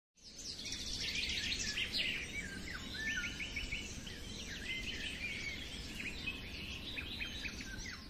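Several small birds singing and chirping together in quick, overlapping trills and short falling notes, over a faint low background hiss of open countryside. It fades in at the start.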